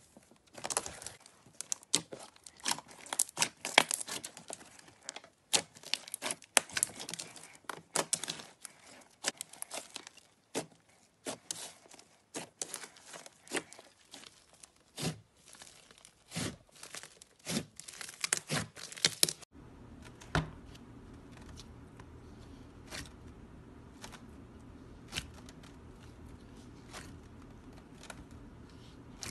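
Hands squeezing, pressing and pulling slime, giving dense crackling, popping and tearing sounds. About two-thirds of the way through, a low steady hum comes in and the crackles become sparser.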